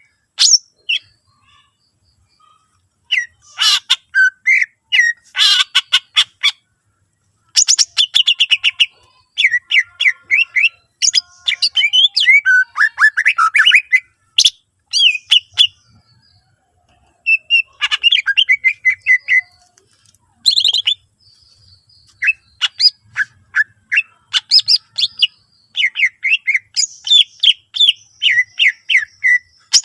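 Cucak ijo (green leafbird) singing loudly and energetically: a varied song of chirps, whistles and rapid-fire stuttering trills, packed with phrases copied from other birds, broken by two short pauses.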